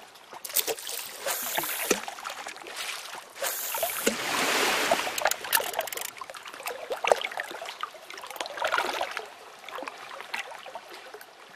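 Running water trickling and splashing, with many small splashes and drips scattered through it and louder stretches of rushing water, loudest around the middle.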